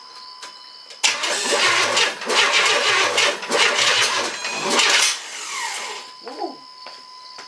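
A 4.3L Vortec V6 cranks on its starter from about a second in, sputtering and puffing back for about four seconds, then winds down. Puffing back is usually a sign that the ignition timing of the freshly installed distributor needs to be advanced slightly.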